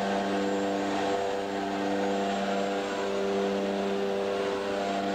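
Propeller aircraft engines droning steadily, heard inside the cabin: a constant low hum with several steady higher tones over a rushing hiss.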